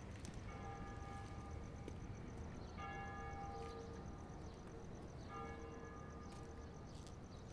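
A church bell tolling slowly: three strikes about two and a half seconds apart, each ringing on and fading, over a steady low background rumble.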